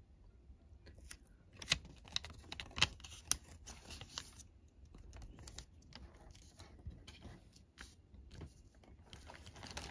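Faint, irregular clicks and light taps of fingers handling a paper instruction leaflet and a plastic COVID-19 antigen test cassette, with a low steady hum underneath.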